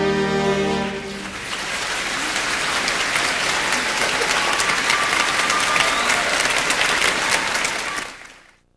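The marching band's final held chord ends about a second in, followed by audience applause that fades out near the end.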